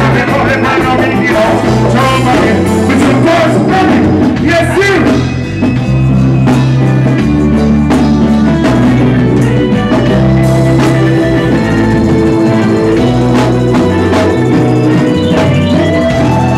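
Live reggae band playing loudly, with a heavy bass line and drums. A voice sings over it for the first few seconds, and sustained chords carry the rest.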